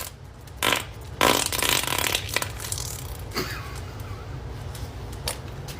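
A person farting: a short burst, then a louder, longer one lasting about a second.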